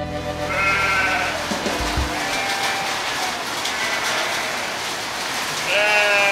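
Rain falling steadily on a street, with a few short pitched tones over it about a second in, in the middle and near the end, and a brief low thump about two seconds in.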